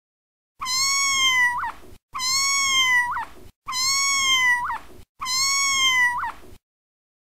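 Kitten meowing four times in a row, the same meow each time: a long steady call with a brief upward flick at the end.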